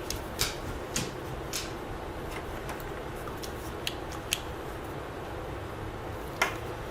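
Handling clicks from an RJ45 pass-through crimping tool as its handles and lock are worked to get the plug seated: several short sharp clicks spread out, the loudest near the end.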